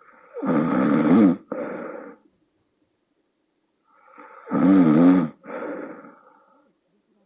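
A woman of about forty, exhausted, snoring in her sleep: two breath cycles, each a loud, rattling snore with a wavering pitch followed by a softer, breathy snore, with a pause of a couple of seconds between cycles.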